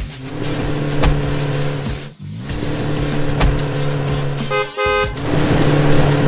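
Truck engine sound effect running steadily, dropping out briefly about two seconds in, with two short horn toots about four and a half seconds in.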